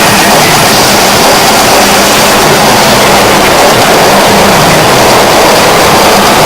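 Harsh noise: a loud, unchanging wall of distorted electronic noise covering every pitch, with a faint steady hum underneath.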